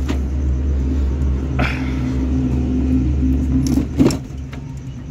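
Steady low rumble of a motor vehicle engine with a hum in it, fading about four seconds in. Light metal clinks and a sharp knock at about four seconds as the old power steering hose is worked loose between the metal lines.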